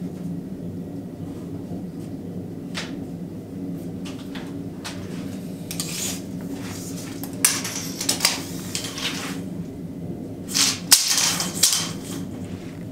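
Knocks, clatter and scraping as lumber and a long metal bar are handled at a table saw, coming in bursts that are loudest around the middle and again near the end, over a steady low hum.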